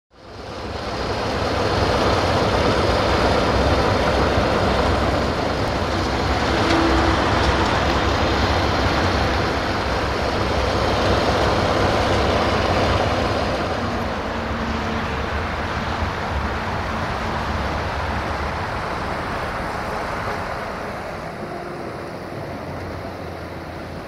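Sulzer diesel engine of an LDE2100 (060-DA) diesel-electric freight locomotive running with a deep rumble, mixed with the noise of the train. The sound rises in about the first second and eases off gradually over the second half.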